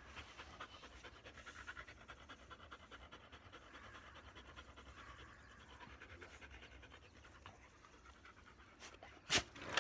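Black Labrador retriever panting quickly and steadily, with a short sharp knock near the end.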